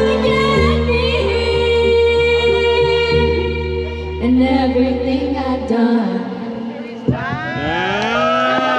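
Music with a sung vocal over a steady bass line. About seven seconds in, sweeping tones that rise and fall in pitch take over.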